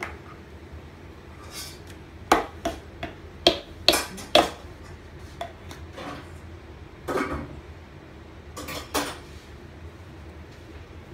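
Small clear plastic cup and lid clicking and knocking together as they are handled by a toddler: about six sharp clacks in quick succession in the first half, then a few more spread out.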